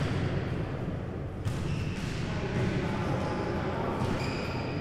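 Futnet ball kicked and bouncing on a sports-hall floor: a sharp thud right at the start and another about a second and a half in, over the hall's steady background noise.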